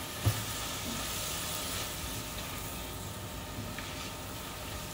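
Lettuce leaves and shimeji mushrooms sizzling in hot oil in a stainless steel frying pan while being stir-fried with a silicone spatula. A single knock comes shortly after the start.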